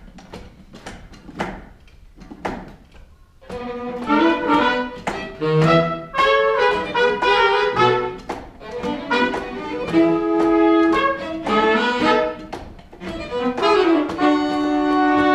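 Pit orchestra playing musical-theatre underscore. It starts with a few light, sparse strikes and plucks, then the full band comes in loudly about three and a half seconds in with held chords and melody lines.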